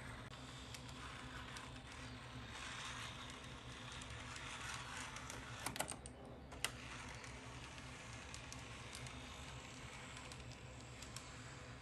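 Model tram running on a diorama's track: a faint small-motor whir with light clicking of wheels on the rails. A few sharper clicks come about six seconds in.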